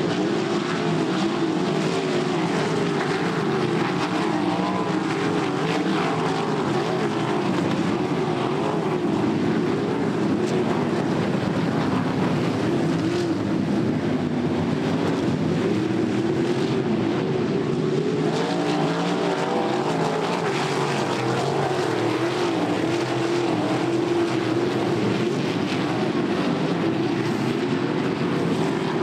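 A pack of winged sprint cars' V8 engines running at racing speed around a dirt oval, many engine notes overlapping and rising and falling without a break as the cars come around and pass.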